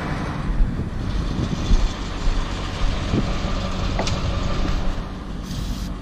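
Cat 225DLC excavator's diesel engine running steadily at idle, with a few sharp metallic clanks and knocks over it.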